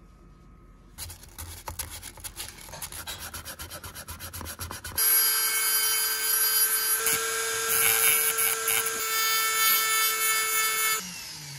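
Wood being worked by abrasion: quick back-and-forth rubbing strokes, about five a second, then about five seconds in a small electric tool starts up with a steady whine and a loud grinding hiss against the wood, its pitch shifting slightly under load, until it stops shortly before the end.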